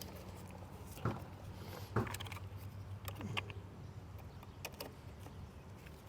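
A few light clicks and knocks of a power probe's leads and clamps being hooked up, over a steady low hum.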